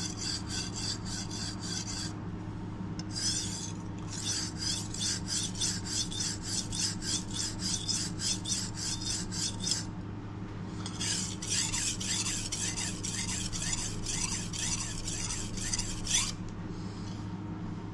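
Kitchen knife being sharpened by hand, its blade stroked back and forth on a whetstone: a rhythmic scraping at about three strokes a second, in three runs with short pauses about two and ten seconds in.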